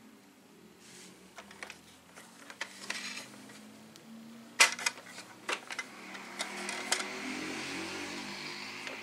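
Hard plastic body of a toy RC dump truck clicking and knocking as it is handled and turned over, with a sharp knock about halfway through, and soft rustling in the second half.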